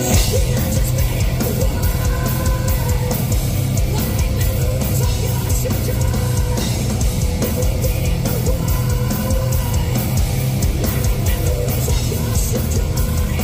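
Heavy metal band playing live at full volume: distorted guitars and bass over fast, hard-hit drums, with the whole band kicking in at once at the start after a sung intro.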